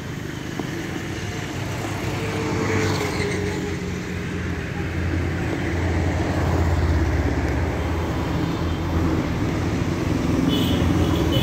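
Road traffic: a motor vehicle's engine rumbling close by, growing louder through the middle and again near the end.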